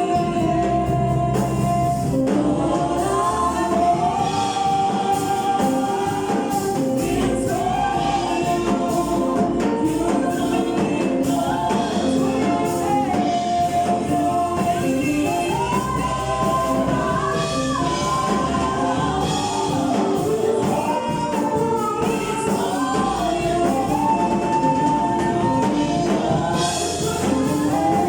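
Gospel choir singing a song with instrumental accompaniment, a sung melody over sustained low bass notes.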